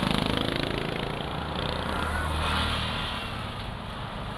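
Motor vehicles passing on a street: engine and tyre noise swells at the start, swells again about two seconds in, then eases off.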